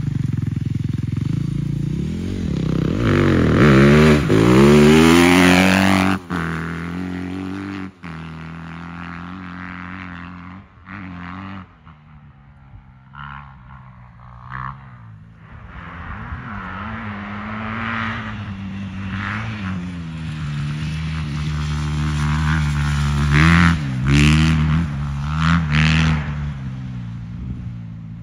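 A 250 dirt bike's single-cylinder engine revving up and down as the bike pulls away and rides across the field. The pitch sweeps up and down, loudest in the first few seconds, quieter in the middle, then climbing again later.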